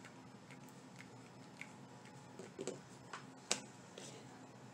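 Scattered light clicks and ticks from hot-gluing craft work: a hot glue gun is used and craft materials are handled on the work surface. The sharpest click comes about three and a half seconds in.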